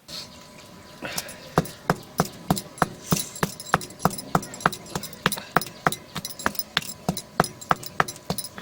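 Pestle pounding peppercorns, fennel seed and garlic cloves in a small mortar: steady strikes about three a second, starting about a second in.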